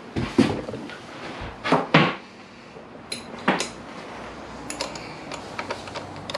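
Hand tools and a hand vacuum brake-bleeder pump being handled and set down on a concrete floor: a few sharp knocks and clunks, one with a brief metallic ring, then a run of light clicks as a spanner is fitted to the front brake caliper's bleed nipple.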